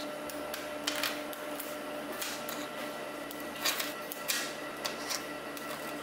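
Small neodymium magnet balls clicking and clattering as rows of them are pressed and snapped together on a tabletop, in scattered short clicks, the loudest a little past halfway, over a faint steady hum.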